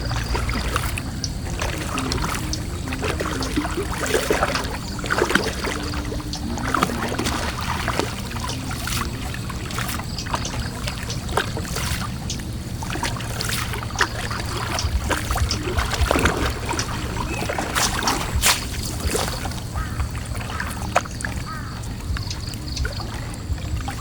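Water trickling and splashing, with irregular knocks and clatter, as a gill net is hauled in by hand over a small boat; a low steady hum runs underneath.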